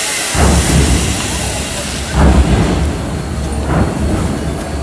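Reconstructed Deutsche Reichsbahn class 03.10 express steam locomotive 03 1010, a three-cylinder engine, working slowly with three heavy exhaust beats about a second and a half apart over a low rumble, just after a loud steam hiss cuts off.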